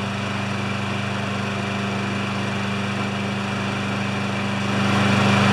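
Poulan Pro push mower's Briggs & Stratton single-cylinder four-stroke engine running steadily, freshly tuned up with a new air filter and a clean plug. It gets louder near the end.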